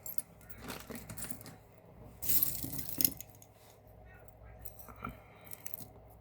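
Metal costume jewelry clinking and jangling as pieces are handled, in short irregular clatters, loudest for about a second a little past the middle.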